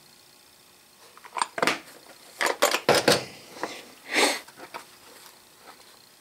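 Hinged plastic instrument cases being handled: a run of clicks and knocks as lids are snapped shut and opened and a case is set down. It starts about a second in and dies away near five seconds, with one short scrape in the middle of it.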